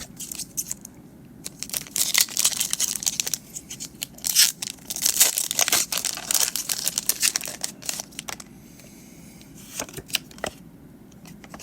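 Foil booster-pack wrapper of Pokémon trading cards being torn open and crinkled by hand, a dense run of crackling that lasts about seven seconds, then a few scattered clicks as the cards are handled.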